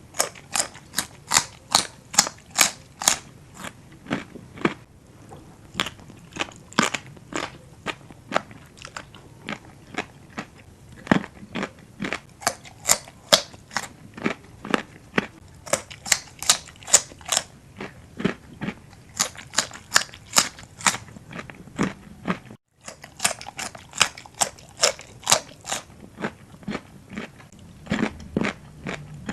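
Close-miked eating sounds: crisp, crunchy chewing of a spicy pounded seafood salad, in runs of sharp crunches a few per second, broken by a brief dropout about two-thirds through.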